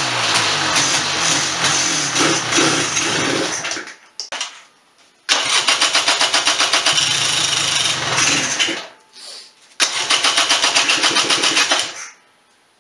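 Electric starter cranking the 1996 Polaris Sportsman 400's two-stroke single-cylinder engine in three attempts, each a few seconds long with a rapid even chugging pulse, cut off by short pauses without the engine settling into a steady idle.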